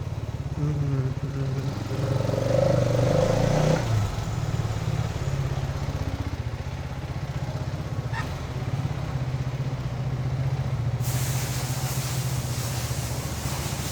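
Hero Xtreme 250R's single-cylinder engine running at low speed. It briefly picks up, rising in pitch, about two to four seconds in. The owner says the engine has developed an abnormal loud noise that needs warranty replacement parts. A steady hiss joins near the end.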